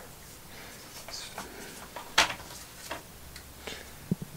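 Plastic air filter housing being handled and pushed onto a small engine's carburettor: a few light clicks and knocks, the sharpest about two seconds in.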